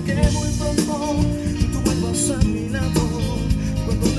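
Music: a Spanish-language love song with guitar and a steady beat.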